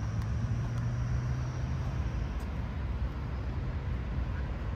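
Outdoor city ambience: a steady low rumble of traffic, with a vehicle engine hum that fades away about two seconds in.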